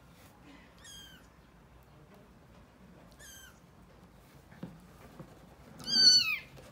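Kittens nearly 40 days old mewing: two faint, high-pitched mews about one and three seconds in, then a much louder, longer mew near the end, each falling in pitch. A couple of soft taps come just before the last mew.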